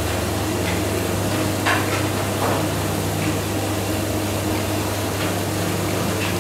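Covered aluminium wok of pumpkin and long beans cooking over a gas burner: a steady hiss with a low hum underneath, and a few faint crackles from the food under the lid.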